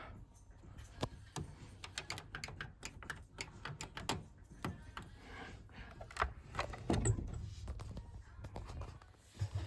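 A run of sharp, irregular clicks and light knocks, of small hard parts being handled, over a faint low hum.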